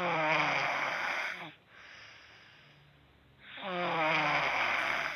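A 12-year-old girl snoring loudly in her sleep: two long snores, each about two seconds, with a low sliding drone under a rough noisy rasp, and a quieter breath between them.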